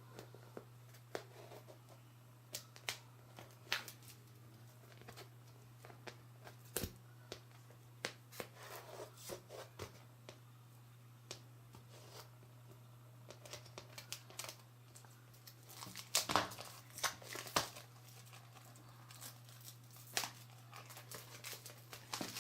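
Packaging of a jigsaw puzzle being opened by hand: scattered tearing, crinkling and light clicks, busier near the end, over a steady low hum.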